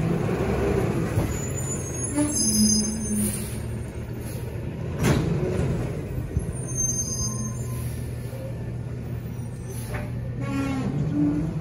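Autocar ACX garbage truck's diesel engine running steadily as the truck pulls away, with a sharp air-brake hiss about five seconds in.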